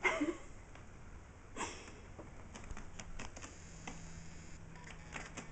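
Part-Bengal kitten's claws catching and dragging on fabric curtains as it climbs them: a run of light, scratchy clicks and rustles. A short falling vocal sound at the very start is the loudest moment.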